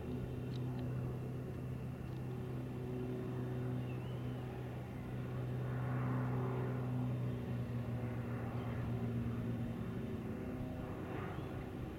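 Cessna 210L's piston engine and propeller giving a steady low drone as the plane comes in on approach to land, gear down.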